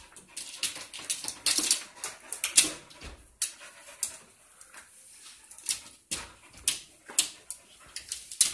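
A dog chasing a fly against a glass door: an irregular run of sharp clicks and taps, with a few brief whimpers.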